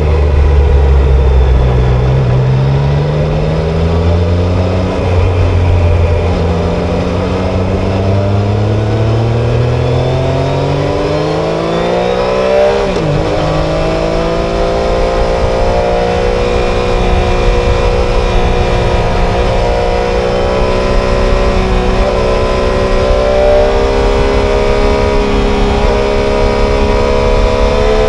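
Triumph Tiger Sport 660's inline three-cylinder engine accelerating through the gears. The pitch climbs, drops at an upshift about five seconds in, climbs again to a second upshift about thirteen seconds in, then holds nearly steady, rising only slowly.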